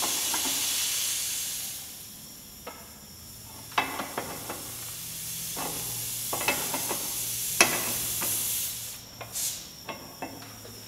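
Compressed air hissing out past the lid seal of a pressurized Harbor Freight paint pressure pot: the lid is leaking. The hiss dies down about two seconds in and comes back a few seconds later, with several sharp metallic clicks and knocks as a wrench tightens the lid's wing bolts.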